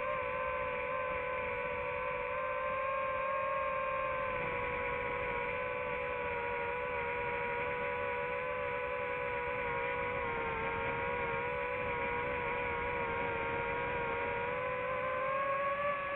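DJI FPV quadcopter's motors and propellers humming steadily in flight, the pitch wavering and climbing near the end.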